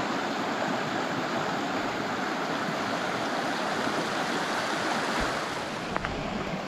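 Shallow creek water rushing and splashing over rocks in a small rapid: a steady, even rush. It eases slightly near the end, where a couple of faint clicks are heard.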